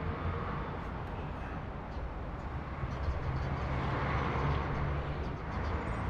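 Volkswagen Cross up!'s small three-cylinder petrol engine and tyres as the car drives past: a steady low engine hum under road noise that swells about four seconds in as it passes close.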